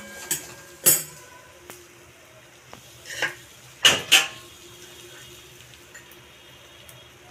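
Metal spatula scraping and clinking against a metal kadai while stirring a thick, finished fish curry: about five sharp clinks and scrapes, some with a brief ring, in the first four and a half seconds, then only a faint background.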